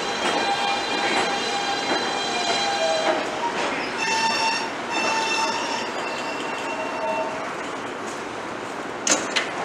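R160 New York subway train braking to a stop at an elevated platform: wheels running on the rails under the whine of its electric propulsion, which sits on steady tones and shifts pitch about four seconds in, then fades as the train slows. A short sharp burst comes about nine seconds in, as the train stands.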